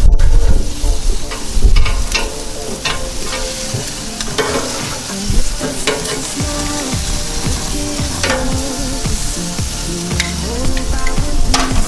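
Honey-garlic-glazed pork tomahawk chops sizzling on a hot grill, with fat and sauce spitting and crackling every second or two.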